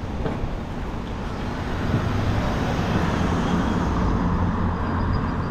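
Street traffic: a motor vehicle's engine running close by over a steady rush of road noise, getting louder about two seconds in.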